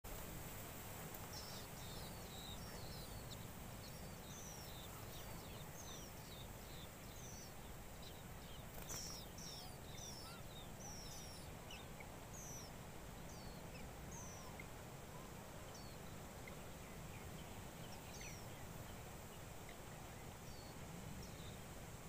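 Nestlings begging with many short, thin, high-pitched chirps that sweep downward, coming thick and fast for the first fifteen seconds or so and then more sparsely, over a steady low background rumble.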